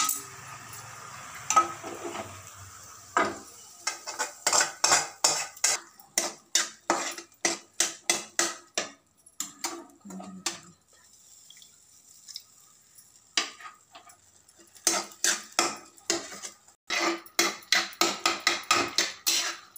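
A spoon and spatula scraping and clinking against metal pans in quick repeated strokes, about two to three a second, as fried green peas are scooped out of one pan and stirred into tomato masala in a kadai. The strokes pause for a few seconds around the middle, then resume.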